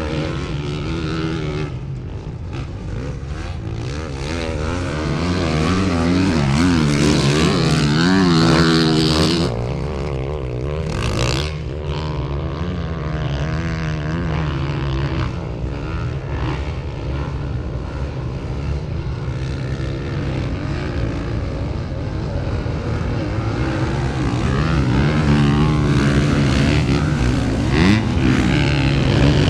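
Dirt bike engines revving, their pitch rising and falling as the throttle opens and closes.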